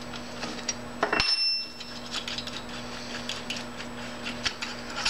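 Small metallic clicks and taps as the long through-screws are worked loose from the end cap of a Ford long-shaft motor, with one sharper metal clink that rings briefly about a second in.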